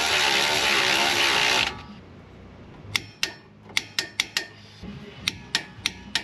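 A power tool runs loudly with a slightly wavering pitch for about a second and a half, then stops abruptly. A dozen or so sharp metallic clicks and clinks follow, irregularly spaced.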